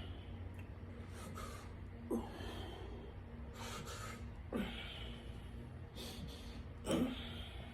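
A person breathing hard with effort: a short sharp intake followed by a brief voiced exhale, repeating about every two and a half seconds, three times, over a steady low hum.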